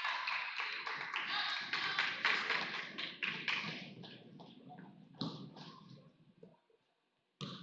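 Rapid, echoing taps of basketball players' sneakers running on a hardwood gym floor. The taps fade over the second half and drop to near silence shortly before the end.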